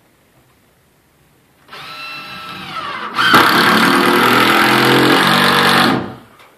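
Cordless impact driver driving a screw through a 2x4 brace into a ceiling joist. The motor spins up about two seconds in, then breaks into loud hammering for about three seconds as the screw bites and seats, and stops suddenly.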